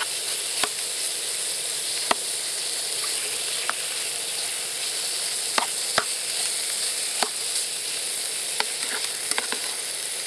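Duck pieces, potatoes and carrots frying in butter and olive oil in a pan: a steady sizzle broken by scattered sharp clicks.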